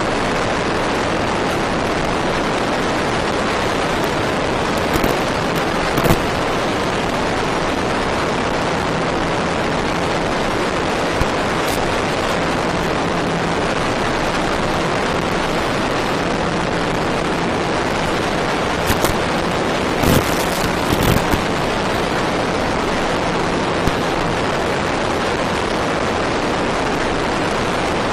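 Steady loud rushing noise with a faint low hum that comes and goes, broken by a few short sharp pops and crackles.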